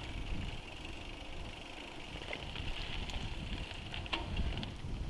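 Bicycle riding on a rough track: a low, uneven rumble of tyres and wind on the microphone, under a steady high hiss, with a few faint clicks.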